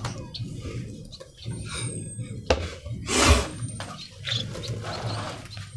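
A snake dropped into a plastic drum: one short rustling thud about three seconds in, over a low steady hum, with a few faint high chirps.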